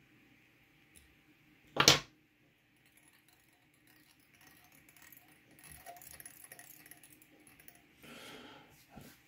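Small fly-tying tools handled at the vise: one sharp metallic click about two seconds in, then soft clicks and rustling as thread and bobbin are worked.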